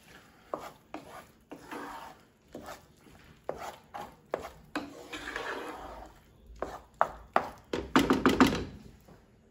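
Wooden spatula stirring an egg, ham and cheese mixture in a large nonstick skillet, scraping across the pan and knocking against it at irregular intervals. The loudest run of knocks comes near the end.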